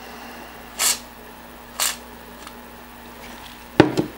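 Two short scraping rustles about a second apart, then a sharp metallic click near the end, from hands working the sheet-metal eject mechanism of an opened slim Compaq 5.25-inch floppy drive.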